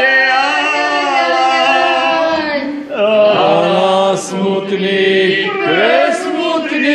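A mixed group of voices singing a slow, mournful Slovak funeral-style folk lament in long held notes. The voices slide up and down in pitch about three seconds in and again near the end.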